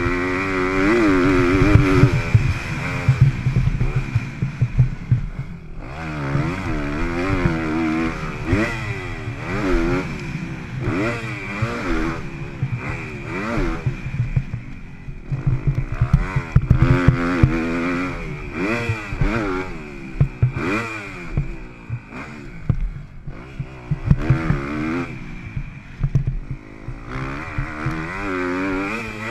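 Motocross dirt bike engine at speed, its revs climbing and falling again and again as the throttle is worked around the track, with a few brief lulls off the throttle. Wind rushes over the microphone throughout.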